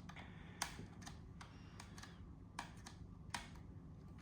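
Faint, scattered clicks and taps of small hard objects being handled, four or five light knocks a second or so apart, over a faint steady low hum.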